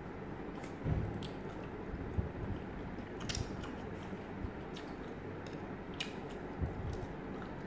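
Mouth sounds of people chewing and biting grilled skewered meat, with scattered small clicks and taps over a steady low background hum.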